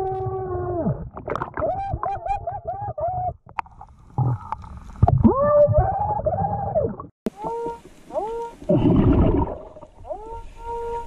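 Scuba diver breathing through a regulator underwater: drawn-out pitched moans from the demand valve on each inhale, some sliding and some held or broken into short notes, alternating with short rumbling bursts of exhaled bubbles.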